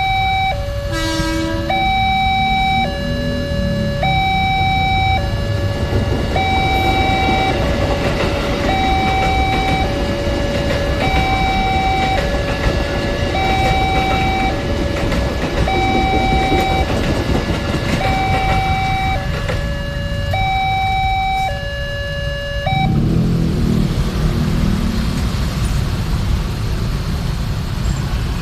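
Railway level-crossing warning siren, a replacement Alkmaar-brand unit, sounding a two-tone hi-lo warning that switches between two pitches about every three-quarters of a second, until it cuts off about 23 seconds in. A short horn blast sounds about a second in, and vehicle engines rumble after the siren stops.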